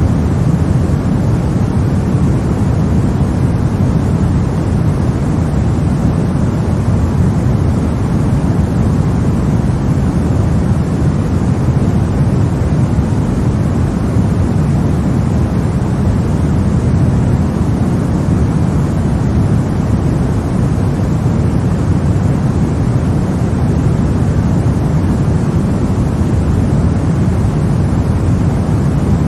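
Steady sleep noise for babies: an even, deep rushing noise that never changes, heavier in the low end than a bright hiss.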